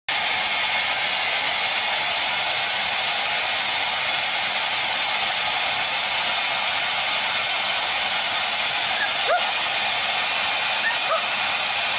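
Handheld hair dryer running steadily: a constant rushing of air with a thin high whine.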